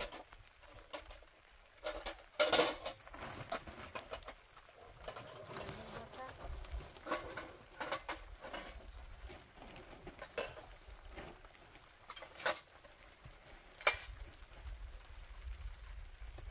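Irregular knocks and clinks of hard objects being handled, the loudest about two and a half seconds in and again near the end, over a low background.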